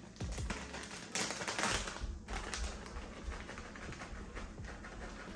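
Crinkling, rustling handling noise with light clicks as shredded mild cheddar is added to macaroni, loudest for about a second near the start.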